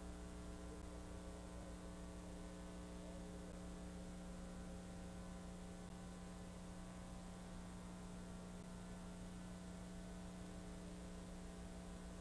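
Faint steady electrical hum with a light hiss underneath, unchanging throughout; the resin and mat work itself makes no audible sound.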